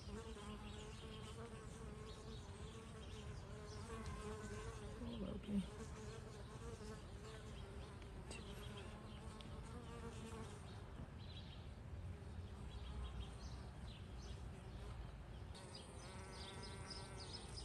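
Honey bees buzzing, a faint wavering hum that rises and falls in pitch, with one bee briefly louder about five seconds in.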